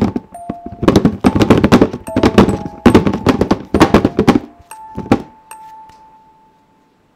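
Rapid heavy banging in three quick flurries, with one last thud about five seconds in, over a held high tone in the horror score. The tone then fades away to silence.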